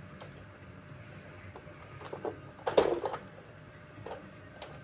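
Plastic parts of a Driven toy tow truck being handled: scattered light clicks, then a quick clatter of knocks about two to three seconds in, and a couple more clicks near the end.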